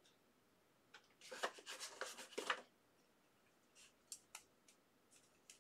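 Trading cards handled by hand: a faint scraping and rustling lasting about a second and a half, starting about a second in, then a few light clicks.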